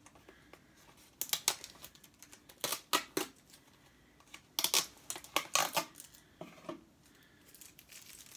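Tape being peeled off the lid of a small plastic cup in several short pulls, in about four bursts of crackling.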